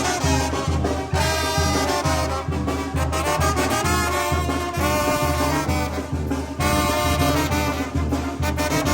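Mexican brass band (banda de viento) playing a son azoyuteco. Trumpets and trombones carry the melody over a steady bass beat of about two pulses a second.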